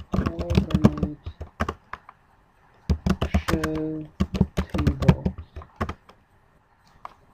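Computer keyboard typing in two quick bursts of keystrokes, the first lasting about a second and the second from about three to six seconds in, each with a short low hum, then a single keystroke near the end.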